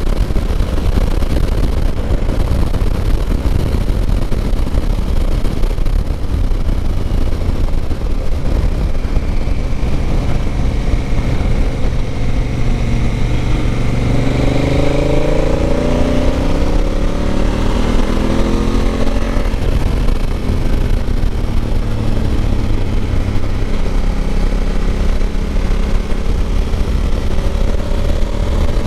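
Motorcycle ridden at speed on a race track, heard from an onboard camera: heavy wind rush on the microphone throughout, with the engine note rising in pitch several times around the middle as it accelerates.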